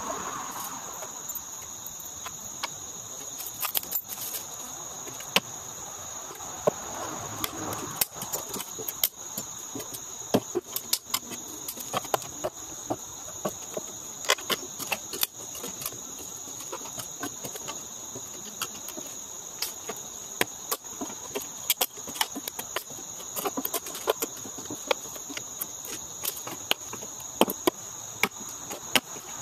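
Claw hammer prying and knocking weathered deck boards loose from a wooden ramp: many sharp, irregular knocks and cracks. Insects trill steadily and high in the background.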